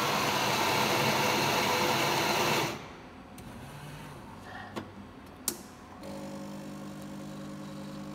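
The built-in burr grinder of an F2 automatic coffee machine grinding beans for a selected drink, a loud steady grinding that stops abruptly after about three seconds. A couple of short clicks follow, then a steady machine hum about six seconds in as the machine goes on to brew.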